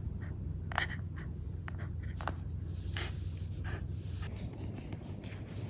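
Scattered faint clicks and light scrapes, about one or two a second and irregular, over a low steady hum in a small room.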